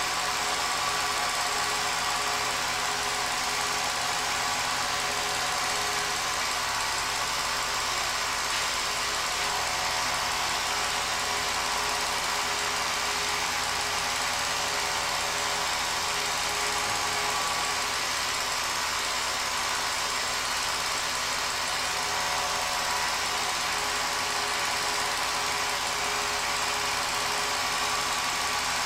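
Home-movie film projector running steadily, a constant mechanical running sound with hiss and no change in level.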